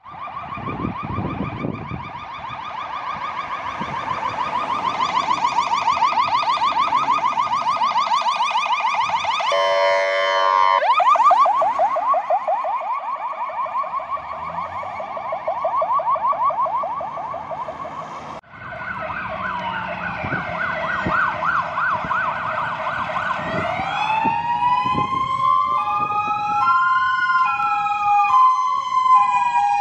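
Fire engine sirens: a fast warbling yelp, with a short horn blast about a third of the way in. Over the last third several sirens overlap, a slow rising and falling wail and a stepped two-tone alongside the yelp.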